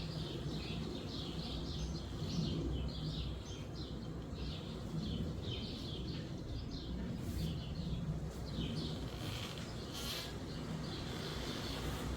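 Sparrows chirping in a busy, continuous chorus, over a steady low rumble of wind.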